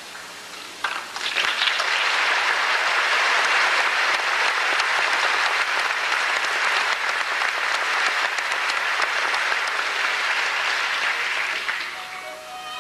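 Theatre audience applauding, swelling about a second in and holding steady, then dying down near the end as orchestral strings start up.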